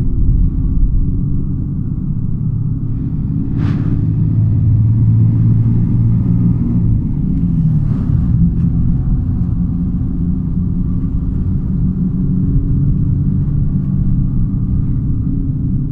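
Hino AK1J bus driving at speed, heard from inside the cabin: a steady low engine and road rumble. Two brief rushing noises come about four and eight seconds in.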